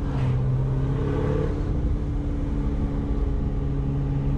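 Corvette ZR1's supercharged V8 running at steady revs under way, heard from the cabin with the windows down, over tyre and wind noise.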